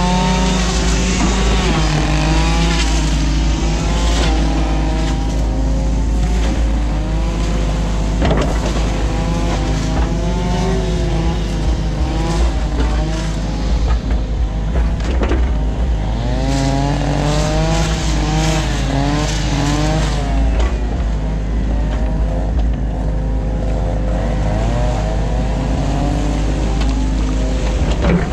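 New Holland Kobelco E50.2 mini excavator working under load. Its diesel engine and hydraulics run steadily, their pitch wavering up and down as the boom and bucket move through the silt. Several sharp knocks come through.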